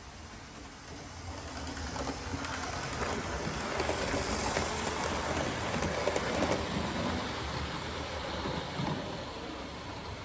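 OO gauge model HST running past on the track: the running noise of its wheels and motor on the rails grows louder over the first few seconds, is loudest midway, and fades as the train moves away.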